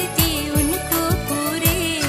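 Background music from a Hindi love song: an instrumental passage with a wavering melody over a steady beat.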